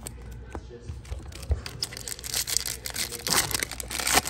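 Foil wrapper of a Topps Chrome UFC hobby pack crinkling and tearing as it is ripped open by hand: a dense crackle that starts about halfway in and is loudest near the end.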